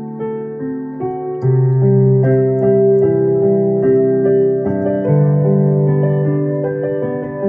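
Electronic keyboard playing a Korean pop ballad in a piano voice: held chords over bass notes, with fresh chords struck about a second and a half in and again near five seconds.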